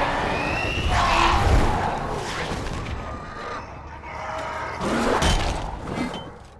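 Film battle soundtrack: heavy crashes and booms, the loudest about a second in and again about five seconds in, with men shouting and music underneath.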